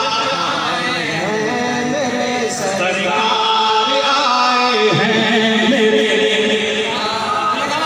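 A man's voice chanting melodically into a microphone, amplified over a public-address system, in long held notes that slide in pitch.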